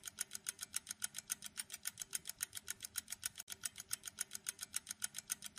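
Clock-ticking sound effect running under an on-screen quiz countdown timer: faint, even ticks at about five a second.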